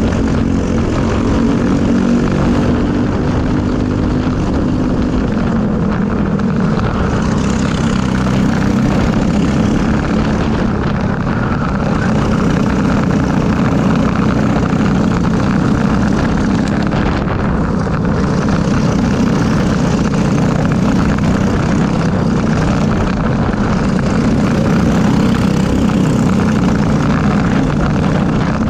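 Briggs & Stratton LO206 single-cylinder four-stroke kart engine running at racing speed, heard from on board, its note dropping and rising again as the kart brakes and accelerates through the corners. Other karts' engines run close by in the pack.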